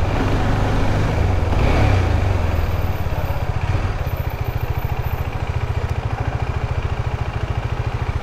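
KTM 390 Adventure's single-cylinder engine running under way, then settling from about three seconds in into an even, rapidly pulsing idle.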